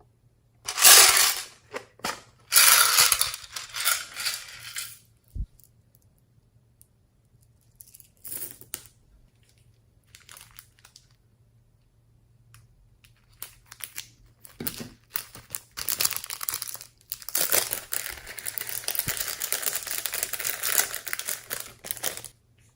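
Slime being squeezed, stretched and mixed by hand, crackling and popping in bursts, with a long, busy stretch of crackling near the end.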